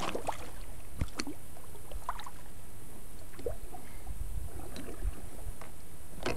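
Kayak paddle strokes: the blades dipping and splashing in calm water, with scattered light knocks and drips.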